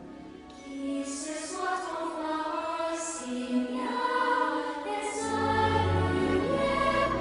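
Show soundtrack music with a choir singing sustained lines; a deep bass comes in about five seconds in.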